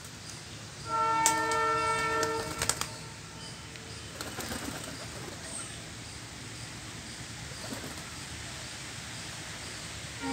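A horn sounds once, a steady held tone about a second and a half long, followed by a few sharp clicks over low steady background noise.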